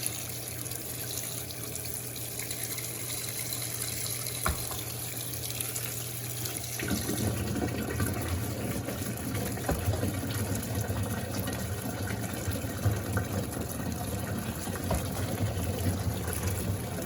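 Electrolux Turbo Compacta LTC07 washing machine filling, with water running into the tub over a steady low hum. About seven seconds in, the sound changes: the high hiss drops and a deeper, rougher sound takes over.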